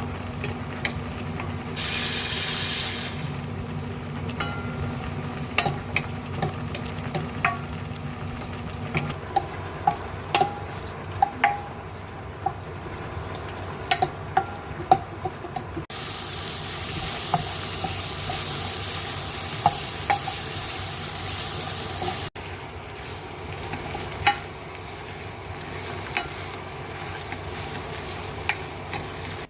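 Food frying in a pan, stirred with a utensil that clicks and taps against the pan. The sizzle grows louder for several seconds around the middle.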